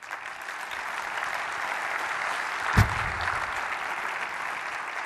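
Audience applauding steadily, with one short low thump nearly three seconds in.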